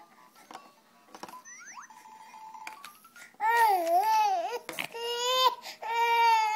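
Baby crying in frustration. After a few quieter seconds with small clicks and taps from a plastic toy, she gives two long, high cries about halfway through, the first wavering up and down in pitch.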